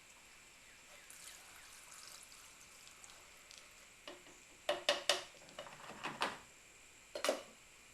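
Gasoline trickling faintly through a funnel into a container, followed by several sharp knocks and clunks as the fuel containers are handled and set down.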